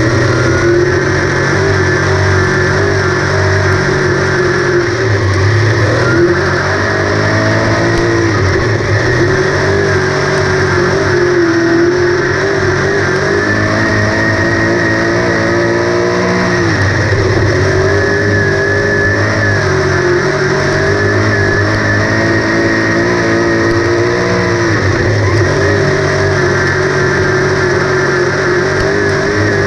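358 Modified dirt-track race car's small-block V8 running hard, heard on board. Its pitch drops every few seconds as the throttle is lifted for a turn, then climbs again down the straightaway.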